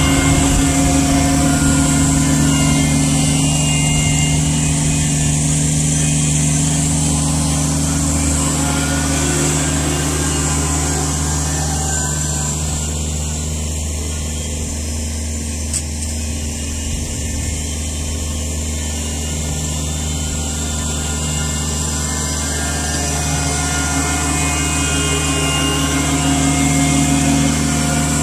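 Kubota BX23S sub-compact tractor's three-cylinder diesel engine running steadily as it drives along dragging its lowered loader bucket over loose dirt. The engine grows somewhat quieter about halfway through as the tractor moves off, then louder again near the end as it comes back.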